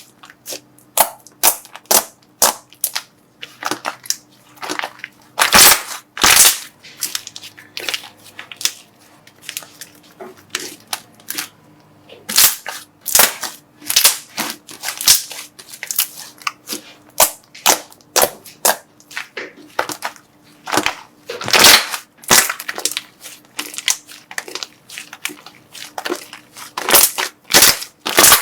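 Slime being worked and squeezed, giving irregular clusters of sharp pops and crackles with short pauses between them.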